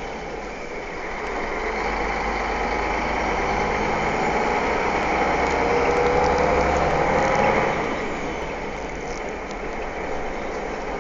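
Engine and road noise inside a moving vehicle's cab, steady throughout, with an engine tone that rises slowly as the vehicle speeds up and drops away about eight seconds in.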